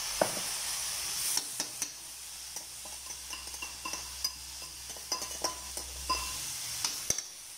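A slotted metal spatula stirring and scraping a vegetable stir-fry of mung bean sprouts, chayote and cabbage in a metal wok. Repeated sharp clinks of the spatula against the pan sound over a steady sizzle, the loudest just after the start.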